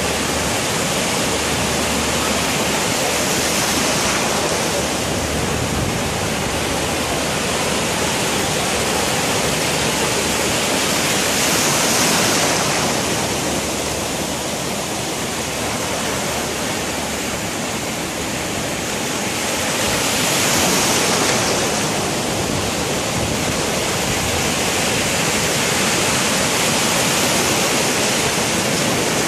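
Ocean surf: waves breaking and foaming white water washing through the shallows, a steady loud rush that swells up every several seconds as a wave breaks.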